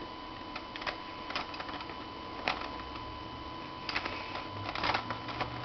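Scattered light clicks and taps from a pencil sharpener being handled against a CRT monitor's screen, over a faint steady hum.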